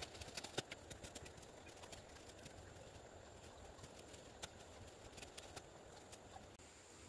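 Near silence: faint outdoor quiet with scattered small clicks and snaps, most of them in the first second and a half.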